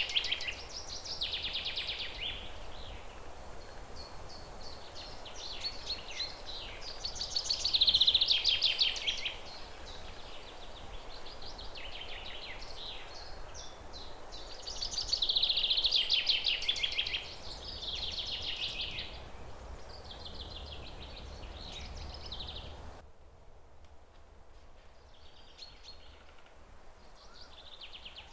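Songbirds singing in repeated fast, trilling phrases, the loudest coming every several seconds, over steady outdoor ambience. About 23 seconds in the background hiss drops away suddenly, and fainter calls carry on.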